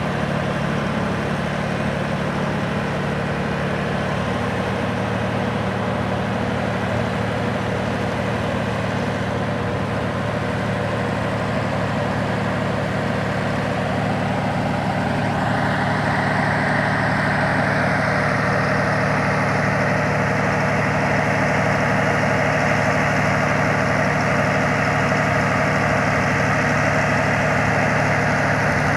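A vehicle engine running steadily. About halfway through, the sound gets a little louder and brighter.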